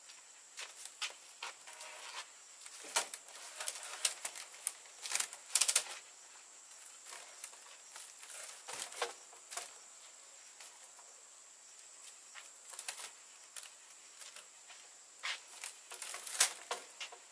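Irregular light clicks and knocks, some in quick clusters, over a steady faint high-pitched hum.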